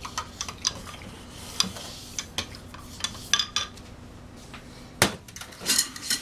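A spoon stirring and clinking in a glass measuring cup of soapy water, with light knocks of a plastic bottle and a glass jar handled on the counter. The loudest knock comes about five seconds in.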